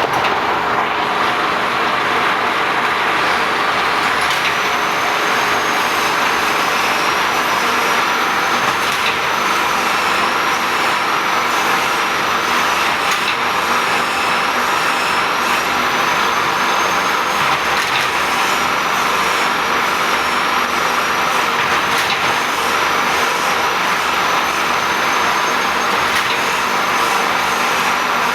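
Wire straightening machine running: a steady mechanical rush, with a high, slightly wavering whine that comes in about four seconds in.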